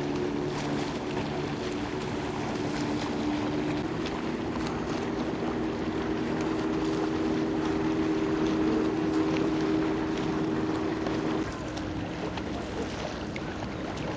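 Motorboat engine running steadily over wind and water noise. Its note shifts about four seconds in, and near the end most of the engine tone drops away as it eases off.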